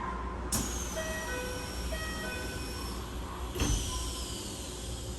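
Keikyu 1000-series train car with Toyo IGBT-VVVF traction equipment: a string of short steady electronic tones stepping from pitch to pitch over a low hum, with two sharp clacks about three seconds apart, each followed by a falling high whistle. This is the abnormal inverter noise that this car makes when starting and stopping.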